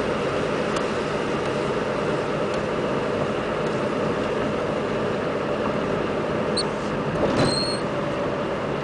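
Steady road and engine noise inside the cabin of a moving car, an even rushing hum. Near the end there are a couple of short high chirps and a click.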